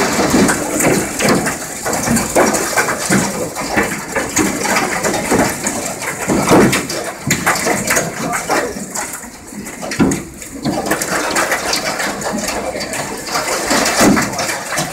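Large hailstones, golf-ball to cricket-ball size, striking office windows at high speed, heard from inside the building: a dense, irregular clatter of hard knocks on the glass, quite a lot of noise, with a brief lull about nine seconds in.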